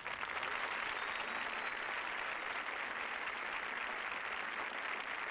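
Stadium crowd applauding, a steady round of clapping that follows the close of a drum and bugle corps number.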